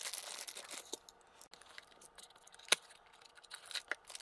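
Crinkling of a clear plastic wrapper as a small diecast model car is handled out of it, with a few sharp clicks, one louder click about two-thirds of the way through.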